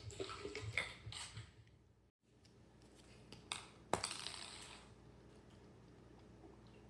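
Small toy discs clattering as they are flicked and batted across the floor: a flurry of light clicks and taps in the first second and a half, then one sharp clack about four seconds in followed by a brief rattle.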